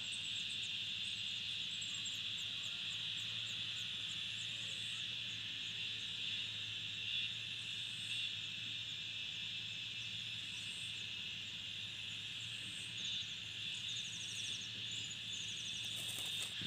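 Steady high-pitched insect chorus trilling without a break, with faint, regularly repeated high chirps over it. Near the end comes a brief rustle as the adult bird leaves the nest.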